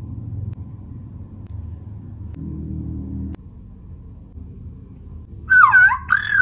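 Electronic interactive plush creature toy, just switched on, giving a loud warbling chirp call that swoops up and down in pitch in two or three phrases near the end. Before it, a low rumble stops suddenly about halfway through.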